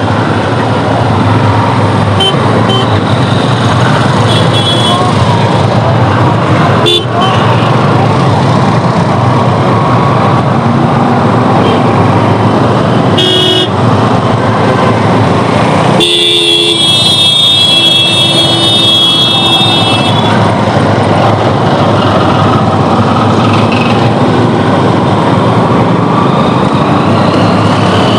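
Motorcycle riding through city traffic: a steady rush of wind and engine noise. About halfway through a vehicle horn toots briefly, and shortly after a horn sounds for about four seconds.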